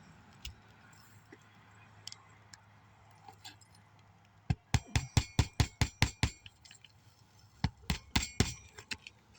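Hammer striking metal on a shingle roof during a shingle tab replacement: a quick run of about eight ringing blows halfway through, then about five more near the end.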